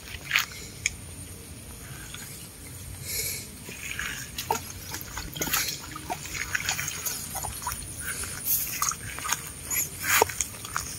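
Water splashing and dripping in small, irregular splashes as a fishing net is pulled and handled in shallow water.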